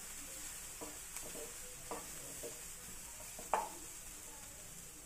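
Onions frying in oil in a pan, sizzling faintly while a utensil stirs them. The utensil scrapes and knocks against the pan a few times, loudest about three and a half seconds in. The onions are being cooked until golden brown.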